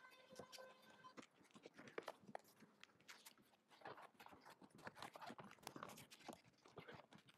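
Faint irregular clicks, taps and rustles of hands refitting the Tesla Model 3's trunk floor panel and pressing the rubber weatherstrip seal back onto the trunk opening. A faint steady hum of several tones stops about a second in.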